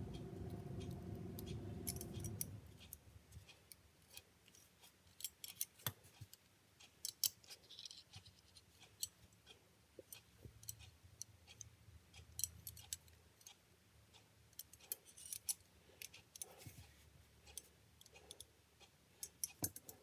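Small steel dividers being reassembled by hand: scattered light metallic clicks and ticks as the legs, spring and adjusting nut are fitted and turned. A steady hum stops about two and a half seconds in.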